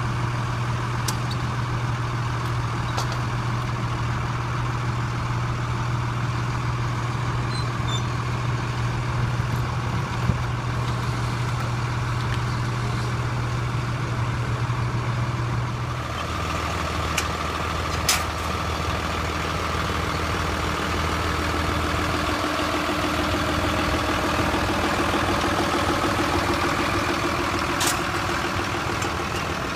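Cummins 5.9-litre inline-six diesel of a Freightliner MB-55 trolley idling steadily. Its hum shifts lower in pitch a little past halfway, with a few light clicks and knocks over it.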